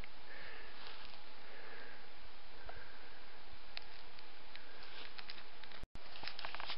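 Steady background hiss of open-air ambience with a few faint clicks; it cuts out for an instant near the end.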